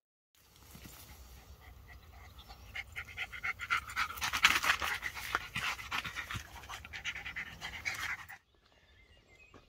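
Jack Russell terrier panting hard close by while mouthing a rope toy, louder from about three seconds in; it cuts off suddenly a little past eight seconds.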